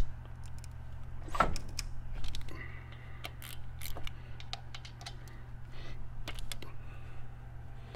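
Light, irregular metallic clicks and taps of hand tools working bolts on a Harley Twin Cam's cam support plate, with one louder knock about a second and a half in, over a steady low hum.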